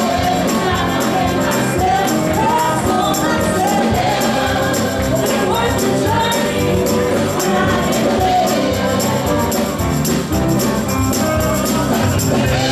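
Live gospel music: voices singing together over a band, with percussion keeping a steady beat.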